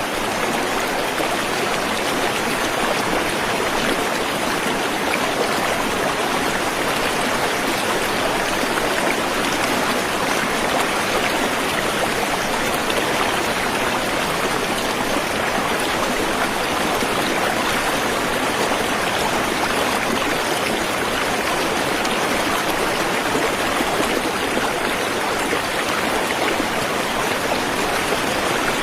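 Waterfall: rushing, splashing water as one steady, unchanging rush.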